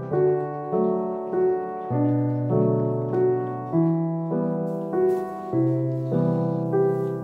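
Background piano music: a gentle tune over a repeating pattern of chords, with a new note struck about every half second.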